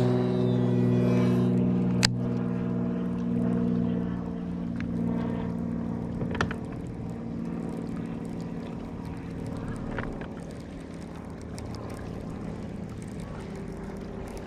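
Motorboat engine running with a steady drone that grows gradually fainter over the first several seconds, as if moving away. A few sharp clicks sound over it.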